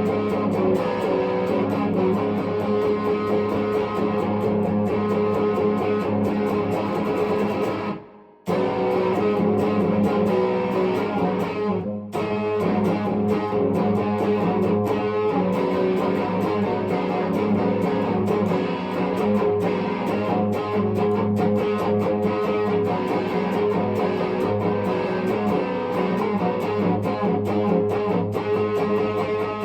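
Epiphone 1959 Les Paul Standard electric guitar being played continuously, with chords and single notes; the sound cuts out suddenly for about half a second around eight seconds in.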